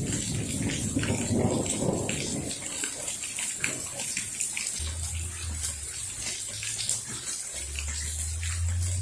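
Heavy rain falling and dripping off a patio roof, with many close drips. A low rumble of thunder fades out over the first couple of seconds, and deep low rumbles come back twice later on.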